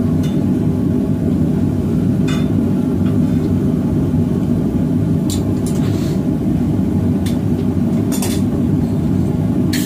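Propane forge burner running with a steady low rush, with a few light metallic clinks of steel and tools, several bunched together near the end.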